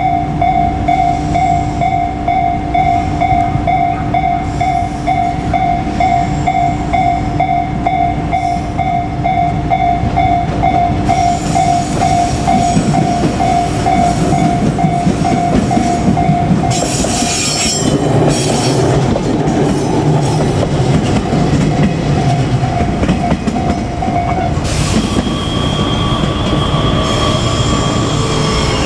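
A level-crossing warning bell rings steadily at about three strokes a second as JR Kyushu 817 series electric trains run over the crossing. The train noise swells to its loudest in the later half. The bell stops a few seconds before the end, leaving a steady high whine.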